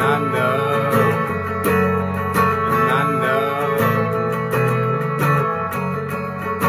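Electric guitar with a capo, a melody picked over steady low notes, with some notes wavering in pitch near the start and again about three seconds in.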